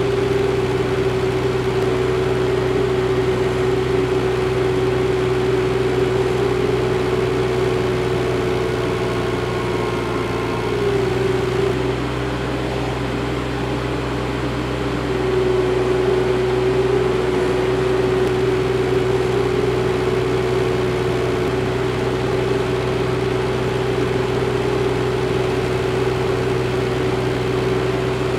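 Summit TX25 compact tractor's diesel engine running steadily at working speed while driving a pull-type snowblower, with a constant droning tone. About eleven seconds in the pitch sags slightly and the sound eases for a few seconds, as if the engine is briefly loaded, then it comes back up.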